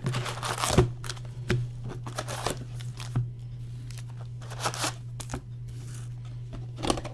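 Trading-card packaging being handled and torn open: irregular short, scratchy tearing and crinkling strokes of cardboard and pack wrappers, over a steady low hum.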